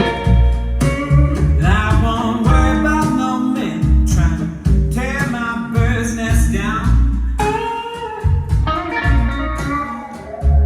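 Blues-style guitar music played back through JBL LX-66 loudspeakers driven by a Hitachi HMA-8500 mkII amplifier, with a strong bass line under bending guitar notes.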